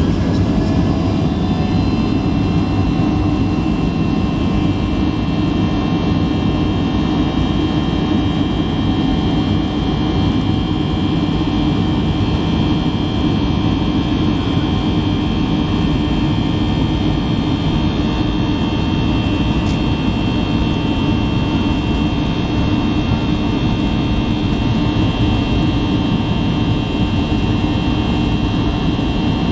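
Boeing 737-800's CFM56-7B turbofan engines heard from inside the cabin over the wing, spooling up with a rising whine in the first couple of seconds, then holding a steady loud drone of high fan tones over a deep rumble as the jet accelerates down the runway at takeoff thrust.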